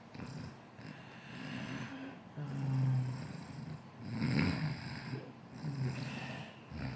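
Snoring from a sleeper lying on its side: about four slow, low, rasping snores, each with a breathy hiss, roughly a second and a half apart.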